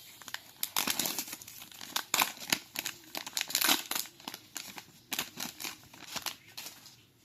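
A Naruto trading-card pack's wrapper being torn open and crinkled by hand: a dense run of sharp crackles that dies down near the end.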